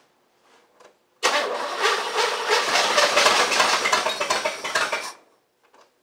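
Chevrolet El Camino's engine being cranked by the starter, starting about a second in and running for about four seconds with a fast, even pulsing before it stops, without catching: a no-start, though the mechanic says it is getting fuel and spark.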